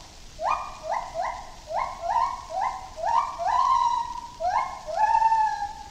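Gibbon singing: a run of clear notes, each sliding upward in pitch, about two a second at first, stretching into longer, drawn-out notes in the second half.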